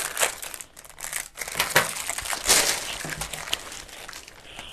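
Plastic piping bag crinkling and rustling in irregular crackles as marshmallow is squeezed out of it.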